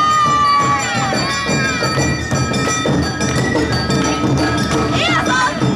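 Awa odori festival music played live: metal kane gongs ringing over drumming, with a bamboo flute melody gliding above.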